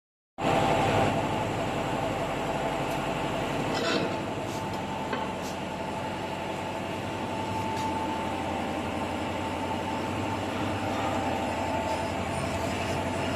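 Electric fruit peeling machine running, turning the fruit on its spindle against the peeling blade. It gives a steady whirring hum with a constant high tone. A few light clicks come between about four and eight seconds in.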